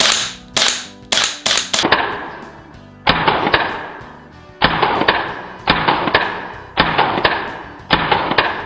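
GBLS DAS GDR-15 blowback electric airsoft rifle firing semi-auto shots: each one a short electric cocking sound with a bang as the bolt slams forward. There are five or six quick shots in the first two seconds, then single shots about a second apart.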